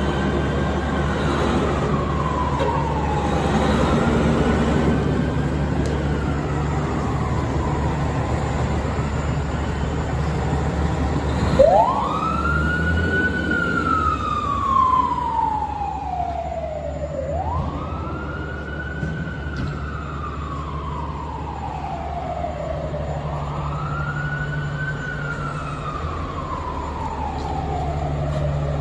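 Fire truck siren on the wail setting. Each cycle sweeps up quickly and then falls slowly, about every five to six seconds. It is faint at first and gets much louder from about twelve seconds in, over the steady low rumble of the truck engines.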